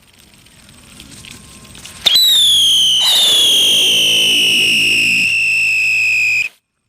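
Whistling wheel firework going off: a faint hiss builds for about two seconds, then a loud shrill whistle starts, gets a fresh push about a second later, and sinks slowly in pitch. It cuts off suddenly about six and a half seconds in.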